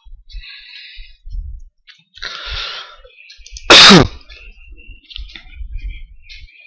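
A person sneezes once, loudly and sharply, about four seconds in. Before it there are only a few faint, short noises.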